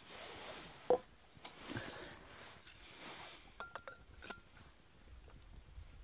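Stainless steel camping pot and metal bottle clinking against each other: a sharp metal knock about a second in, then a few light ringing clinks near four seconds, with soft hissing pouring sounds between.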